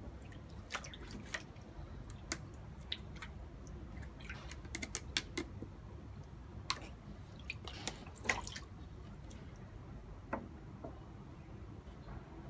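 Irregular small splashes and drips of shallow water in a plastic tub, stirred by a snapping turtle and a prodding wooden stick, with a flurry of them about five seconds in and again around eight seconds.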